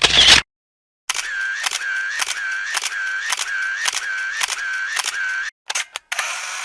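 Camera shutter sound effects. A single shutter release at the start, then a rapid run of about eight shutter releases a little under two a second, each with a brief whirring tone. A few quick clicks and one more release follow near the end.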